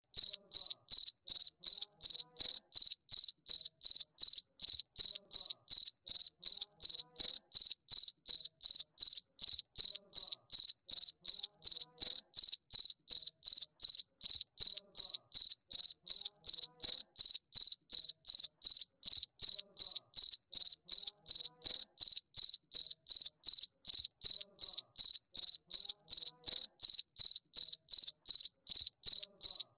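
Cricket chirping: a high, pure chirp repeated evenly, about three times a second, without a break.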